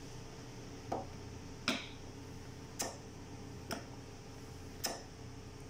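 Five short, sharp clicks at uneven intervals, roughly one a second, over a low steady hum.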